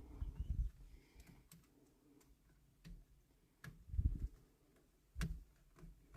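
Scattered small plastic clicks and soft knocks as an aftermarket push-button is worked and snapped into a blank switch slot in a steering wheel, with a few low handling thumps.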